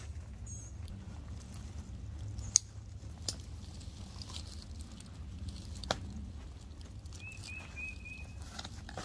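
Rustling and scuffing in dry leaf litter as a person moves around a tent and handles it, with a few sharp clicks. Near the end a bird gives a quick run of short chirps, over a steady low rumble.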